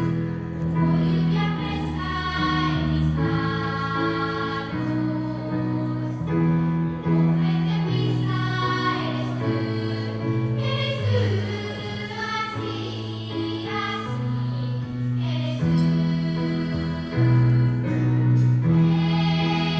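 A girls' choir singing a slow song in harmony through stage microphones, with an instrumental accompaniment whose bass moves in long held notes.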